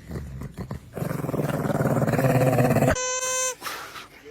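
A dog growling for about two seconds, a rough rapid rumble. Near the end it cuts off abruptly and a steady buzzy tone starts.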